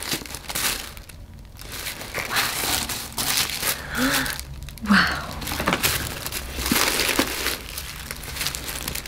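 Tissue paper rustling and crinkling in irregular bursts as it is unfolded and pulled back from a boxed handbag.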